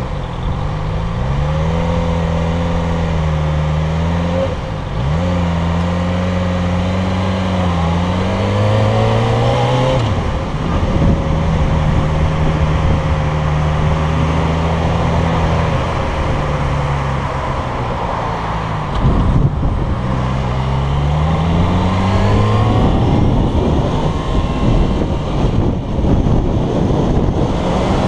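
Motorcycle engine running under way, its pitch climbing as it accelerates about ten seconds in, dropping as it slows around two-thirds through, then climbing again. Heavy wind noise rushes over the helmet-mounted camera's microphone.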